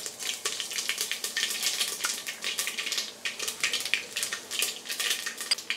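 Mustard and cumin seeds sizzling in hot oil, with many quick sharp pops and crackles as the mustard seeds splutter. This is the first stage of an Indian tempering (oggarane/tadka).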